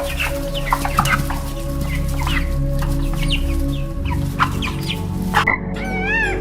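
A bird calling in many short, quick, falling notes like clucking, over steady background music. Near the end the sound cuts off abruptly, and a different bird begins repeated arching calls.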